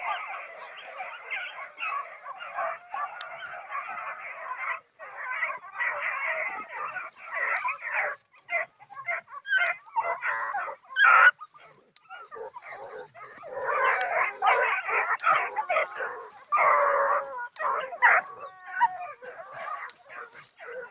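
A pack of young blue Gascony griffon hound puppies giving tongue, the hounds' baying on game, here on wild boar. High overlapping yelps, howls and bays run almost without a break, with short pauses about five, eight and twelve seconds in.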